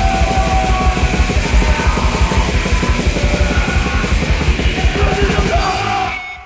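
Heavy, fast extreme-metal music with rapid, dense drumming. The track drops away near the end.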